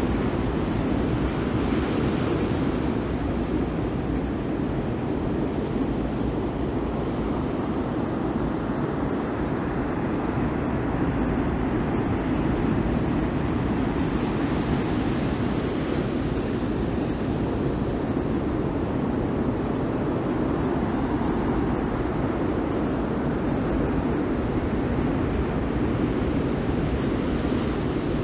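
Surf and wind on an open microphone: a steady rushing noise with a brighter wash of breaking waves that swells and fades about every dozen seconds.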